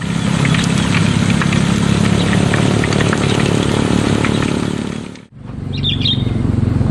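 Steady low droning hum with short bird chirps over it; the sound drops out briefly about five seconds in and then resumes.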